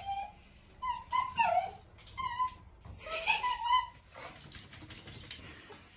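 Small fluffy poodle-type dog whining at a door in several short calls that slide up and down in pitch, fading out over the last couple of seconds.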